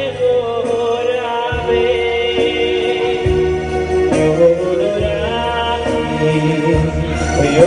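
Male singer singing a Jewish song into a microphone over an electronic keyboard playing bass notes and chords, amplified through PA speakers.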